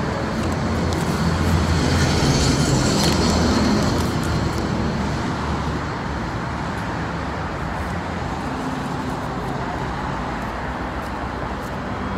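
Street traffic: a steady rumble of passing cars, a little louder for a few seconds near the start.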